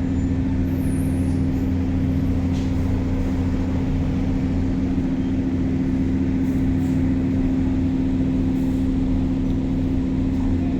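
Steady low engine drone with a constant deep hum, running evenly and unchanged.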